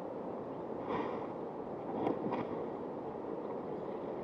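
Steady rush of a shallow river flowing over rocks, with a brief higher sound about a second in and two light knocks around two seconds in as a kayak is pushed off the gravel bank and paddled out.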